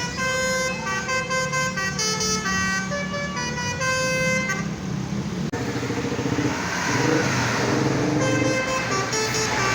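Basuri multi-tone telolet bus horn playing a melody, its chord of tones stepping from note to note for about four and a half seconds. After an abrupt cut about five and a half seconds in, a louder, noisier stretch of bus traffic with lower horn tones over engine rumble.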